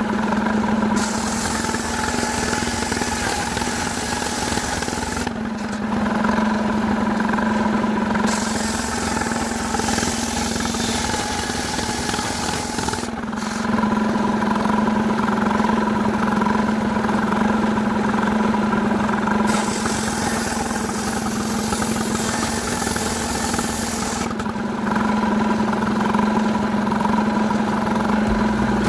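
Stihl two-stroke chainsaw running at steady high revs, cutting jackfruit wood, with the hissing rasp of the chain in the wood coming and going in long stretches.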